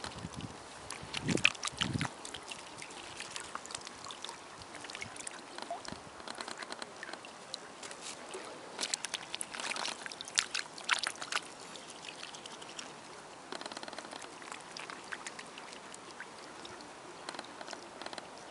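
Mute swans dabbling at bread in the water: small splashes, sloshing and clicks, thickest about nine to eleven seconds in. A few dull knocks about a second and a half in.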